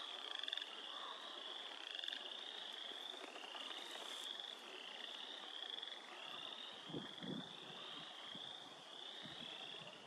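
Frogs calling in a faint, continuous chorus: many overlapping high trills, each rising slightly, repeating about once a second.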